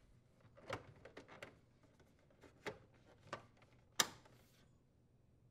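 Plastic side cover of a refrigerator ice maker being slid into its housing: a scattering of faint plastic clicks and taps, the sharpest click about four seconds in.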